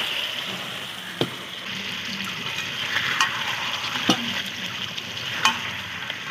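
Chicken curry sizzling in a hot iron kadai as a spatula stirs it, with a few sharp knocks of the spatula against the pan.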